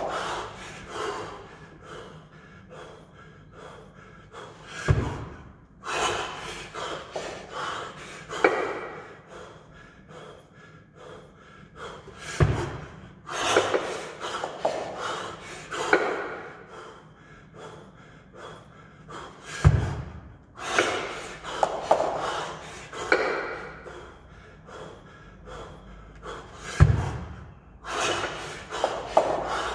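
Man breathing hard in forceful, rhythmic exhales and gasps while doing double kettlebell long cycle with two 24 kg kettlebells. A dull heavy thud comes about every seven seconds, once per repetition, as the bells move through the lift.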